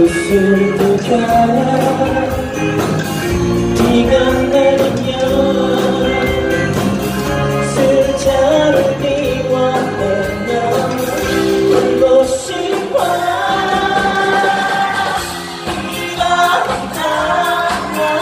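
A live band of acoustic and electric guitars, keyboard and drums plays a pop song with singing over it.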